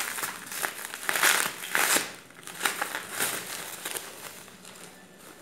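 Plastic bubble wrap crinkling and rustling as it is handled and pulled off a product, in irregular crackles that are loudest over the first two seconds and thin out after about four.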